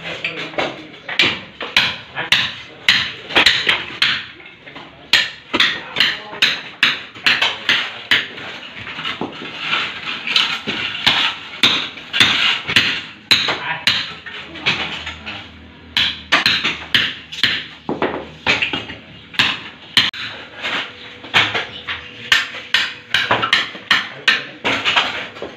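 Hammer striking a chisel to chip ceramic floor tiles loose from a concrete floor: sharp, repeated knocks at about two or three a second.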